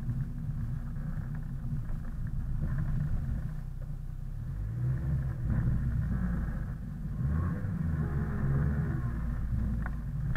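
Car running with a steady low rumble, its engine pitch rising and falling for a few seconds partway through.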